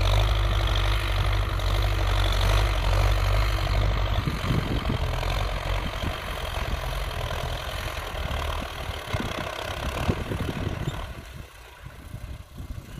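Belarus 825 tractor's diesel engine running under load as it pulls a disc plough through dry soil. A steady low engine drone for the first few seconds, then the sound becomes fainter and more uneven, dropping again near the end.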